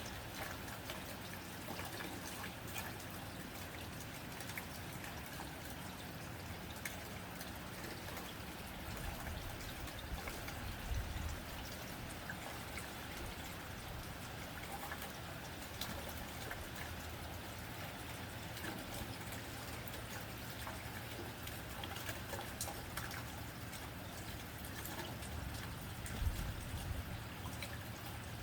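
Steady rain on a tin roof: an even patter of many small drops, with water trickling and pouring off. A few soft low thumps stand out, one about eleven seconds in and one near the end.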